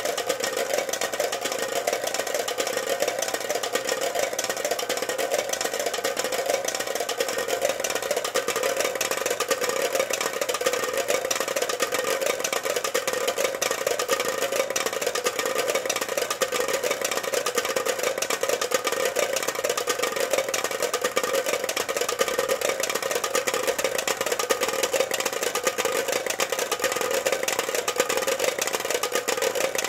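Homemade rain-sound machine: a motor-driven shaft keeps popsicle sticks tapping rapidly on the lids of four plastic cups, a dense, steady patter meant to imitate rain on an iron roof.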